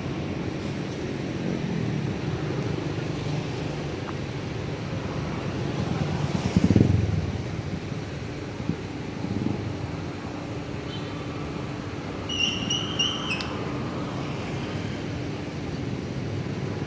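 Road traffic going by, a steady low rumble with one vehicle passing loudest about seven seconds in. A brief high-pitched beeping tone sounds about twelve seconds in.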